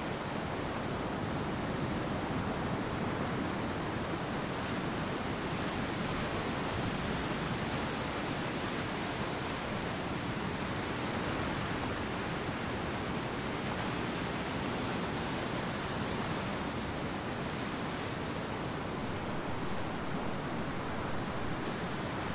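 Ocean surf washing steadily on a beach: an even rush of water with no distinct single wave breaks standing out.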